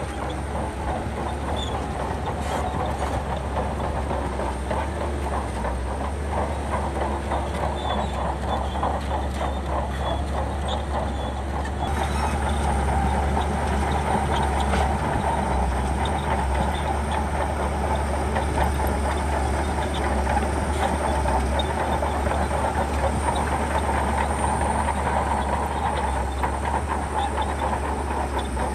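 Shantui crawler bulldozer working: diesel engine running under load with the steel tracks clanking in a rapid, continuous clatter. It gets louder about twelve seconds in.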